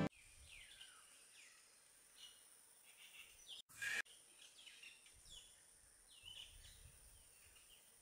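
Faint birdsong: many short, falling chirps from birds in the trees, with one brief louder burst of noise just before halfway.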